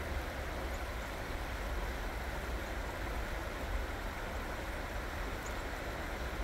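Creek water rushing steadily over rocks, an even wash of noise, with a steady low rumble underneath.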